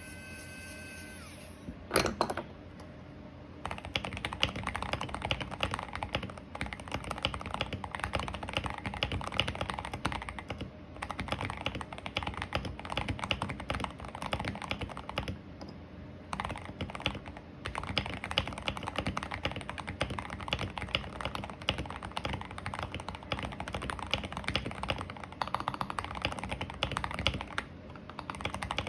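Typing on a KBD67 Lite R2 mechanical keyboard with a tape-modded PCB, linear switches (Gazzew Bobagum housings, Gateron Red stems, light 35 g springs, lubed) and ZDA Matcha keycaps: a fast, continuous 'thocky' clatter of keystrokes that starts about four seconds in, with a few brief pauses. Before it there is a short high tone at the very start and a single loud clack about two seconds in.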